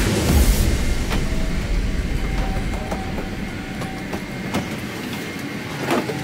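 Rolling suitcase rumbling along an aircraft cabin aisle for about two and a half seconds, then stopping, followed by scattered clicks and knocks of bags and seat parts being handled over a faint steady cabin hum.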